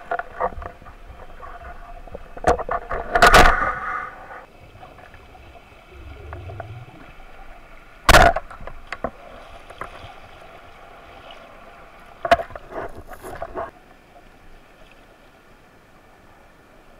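Underwater water noise picked up by a camera in a housing, with scattered sharp knocks and clicks: a cluster about three seconds in, the loudest about eight seconds in, another about twelve seconds in. It quietens after about fourteen seconds.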